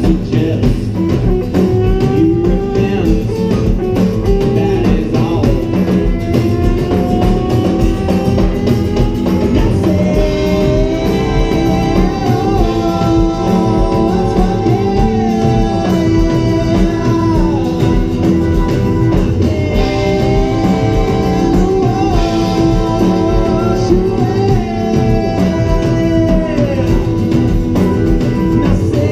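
Live band playing a song: acoustic and electric guitars, bass guitar and drum kit, with singing over it.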